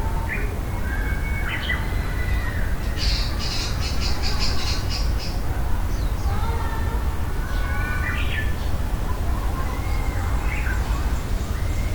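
Several wild birds calling and singing, with a rapid trill of high notes about three seconds in, over a steady low rumble.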